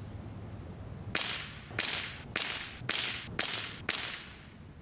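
Six sharp shots from a Crosman 362 .22 multi-pump air rifle, about half a second apart, each with a short fading tail.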